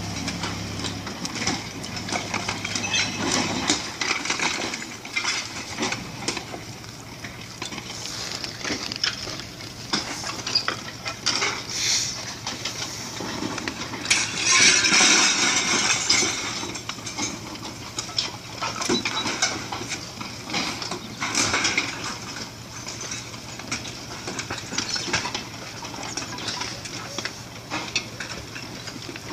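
A house breaking apart in a landslide: a stream of irregular cracks, crunches and clattering of breaking masonry, roof tiles and timber, with a louder crumbling crash about halfway through.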